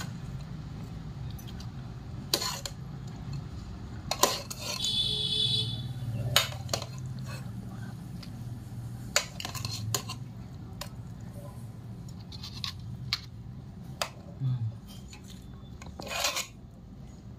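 Metal spoon clinking and scraping against plastic bowls and a pot while yogurt and tempering are spooned over dahi bara: a scattering of short sharp clicks, with a brief scraping rasp about five seconds in.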